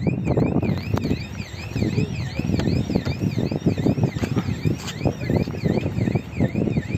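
An electronic warbling alarm sounding steadily, its pitch sweeping up and down about three times a second, over irregular low rumbling and thuds.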